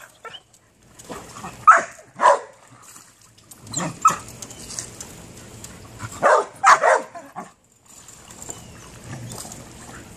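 A dog barking in short sharp barks: two about two seconds apart near the start, one at about four seconds, then a quick run of three between six and seven seconds.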